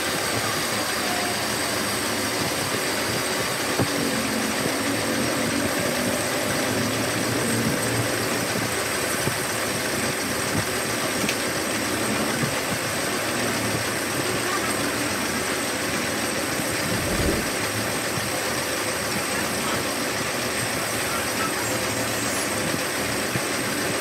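Metal lathe running steadily while its cutting tool faces a spinning metal workpiece, throwing off curled chips. A brief low thump comes about seventeen seconds in.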